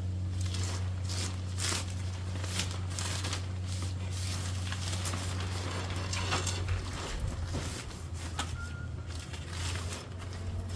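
Nylon tent fabric rustling and scraping, with irregular clicks and knocks of tent poles being fed into the tent's sleeves, over a steady low hum.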